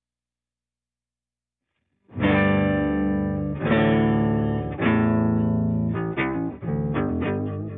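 Silence, then about two seconds in an electric guitar played through an EHX Nano POG polyphonic octave pedal and a Line 6 HX Stomp strikes three ringing chords. About six seconds in it moves to quicker picked notes.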